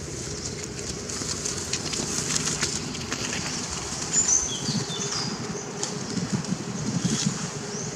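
Outdoor background with a steady low hum and scattered rustles and clicks, with a few short high bird chirps about halfway through.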